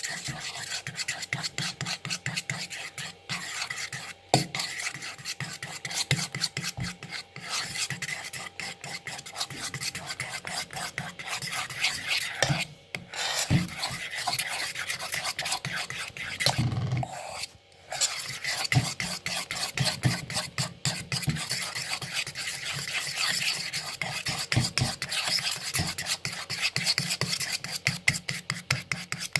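A utensil stirring a bowl of glue, green colouring and shaving foam into slime, scraping quickly and steadily against the bowl, with brief pauses about 13 and 17 seconds in.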